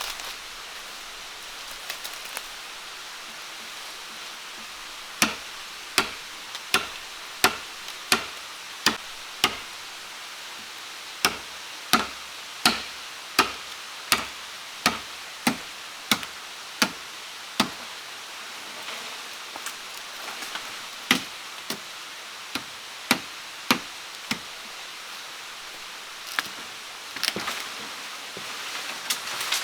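A blade chopping into wood in an even rhythm, about one and a half strikes a second, in several runs with short pauses, starting about five seconds in. A steady hiss runs underneath.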